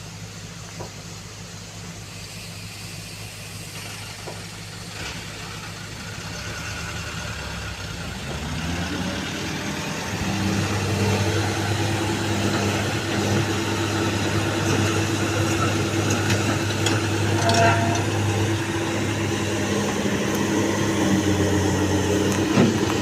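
Heavy-equipment diesel engine running at low revs, then rising in pitch and getting louder about eight seconds in as it revs up and holds at the higher speed. A few short knocks come in the second half.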